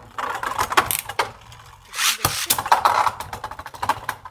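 Two Beyblade Burst spinning tops, Choz Achilles and a Phoenix build, clashing and clattering against each other and the walls of a plastic stadium in rapid clicks and knocks, with a short lull about a second and a half in.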